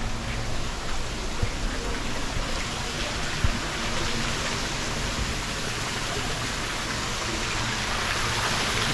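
Steady rushing of water pouring into an outdoor thermal pool, growing a little louder near the end, with a single thump about three and a half seconds in.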